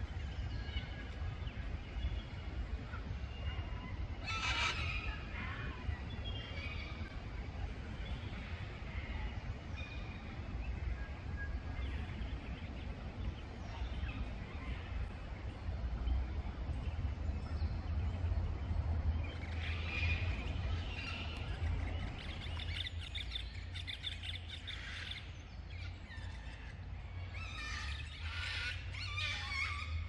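Forest birds calling and chirping, with a brief burst of calls about four seconds in and busier calling in the second half, over a steady low rumble.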